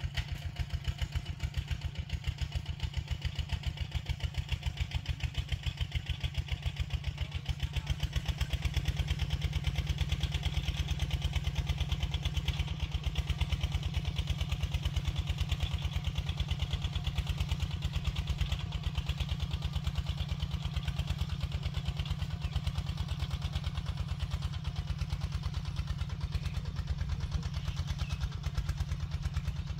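Tractor engine idling, a steady low beat of evenly spaced firing pulses that gets a little louder about nine seconds in.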